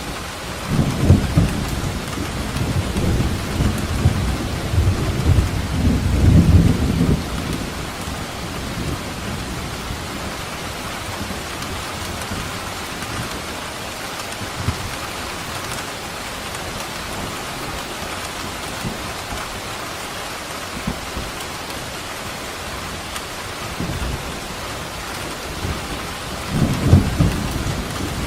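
Steady rain falling, with rolling thunder: a long low rumble in the first seven seconds or so, and another starting near the end.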